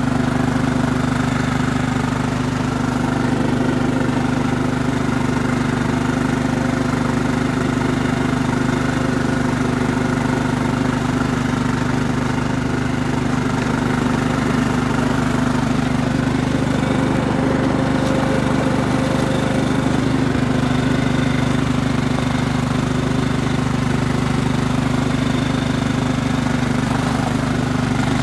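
Craftsman riding lawn mower engine running steadily at an even speed.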